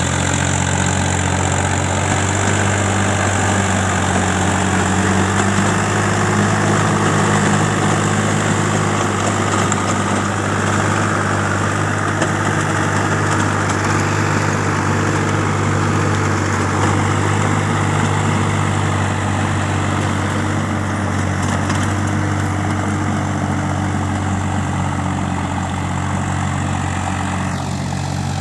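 Tractor engine running steadily, with a falling whine near the end.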